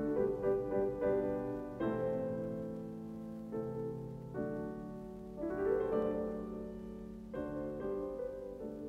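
Background piano music: slow, held chords that change every second or two.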